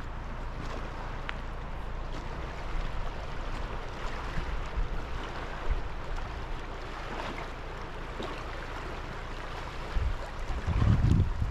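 Steady rushing noise of wind and water, with a stronger gust of wind buffeting the microphone near the end.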